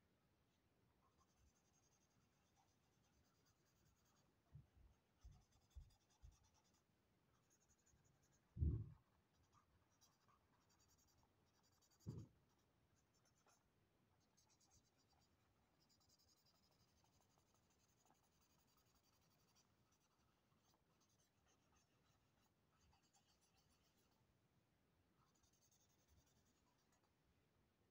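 Faint scratching of a marker pen stroking across sketchbook paper, in short spells, with a few soft thumps of the hand and pen on the pad; the loudest thump comes about nine seconds in and another about three seconds later.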